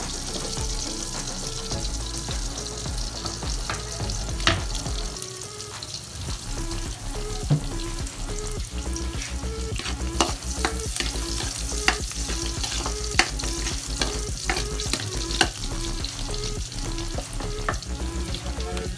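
Chopped garlic sizzling in hot oil in a metal wok. From about four seconds in, a spatula scrapes and taps against the pan again and again.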